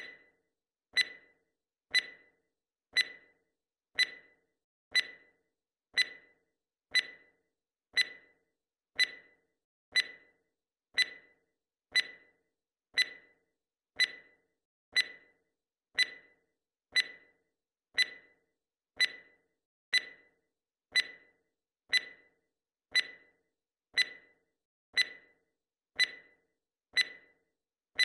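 Countdown-timer tick sound effect: one short, sharp tick every second, evenly spaced, with silence between ticks.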